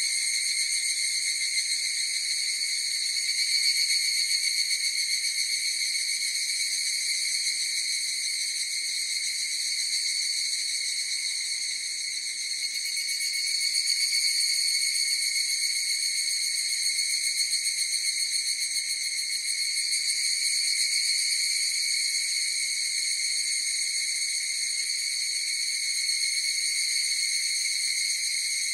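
A chorus of higurashi (evening cicadas) calling: a continuous shrill, rapidly pulsing tone with overtones, swelling and easing slightly in loudness.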